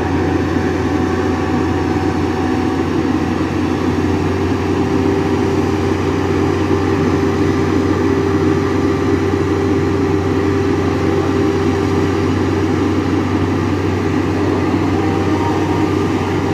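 Large diesel bus engine idling, a steady low drone with an even hum that holds throughout.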